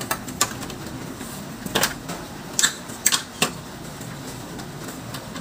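A roller blind's headrail end being pushed and seated into its wall bracket by hand: a series of sharp plastic clicks and knocks, bunched in the first three and a half seconds.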